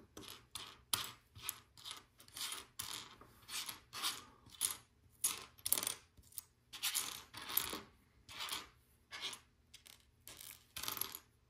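Loose LEGO plastic pieces clattering and clicking against one another and the tabletop as a hand sifts through a pile of them, in a quick, irregular run of rattles, about two a second.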